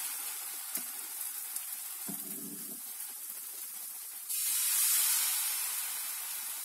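Pancake batter sizzling in a hot multi-cup pancake pan. About four seconds in the sizzle suddenly grows louder as fresh batter is ladled into another cup, then slowly eases.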